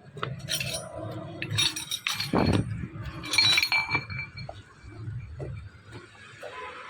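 Metal parts clinking and rattling as worn brake pads are picked up and handled: a few sharp metallic clinks that ring briefly, and one dull knock.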